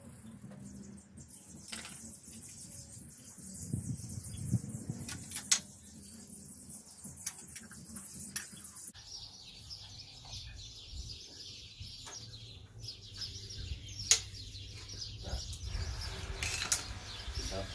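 Scattered clicks and taps of hand tools and small metal parts while a throttle cable is fitted to a small tractor engine, with birds chirping in the background.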